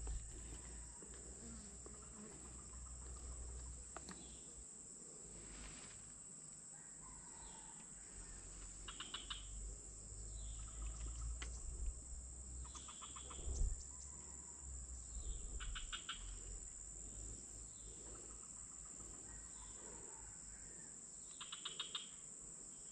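Steady high-pitched drone of jungle insects, with short rapid chirping trills coming every two or three seconds. Low rumble and a sharp knock about halfway come from the phone being handled on its stick tripod.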